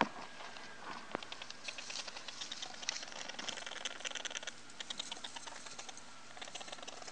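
A young Campbell's dwarf hamster making rapid runs of sharp, quick clicks, with a brief pause near the end. It is the noise the owner is unsure about: plain vocalizing, or a sign of a respiratory condition. A single sharp knock comes at the very start.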